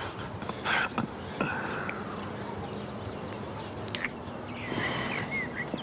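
Soft breathing and a brief kiss between two people, with a few short bird chirps in the background.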